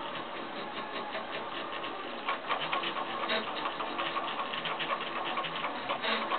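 Home-built AF1 3D printer running a test print: its stepper motors whine and buzz as the print head moves, with rapid ticking that gets busier and louder a little over two seconds in.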